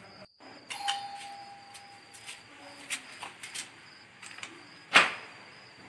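A doorbell rung once: a single electronic tone held for about a second and a half, followed by a few light clicks and one sharp, loud knock near the end. A faint steady high whine runs in the background.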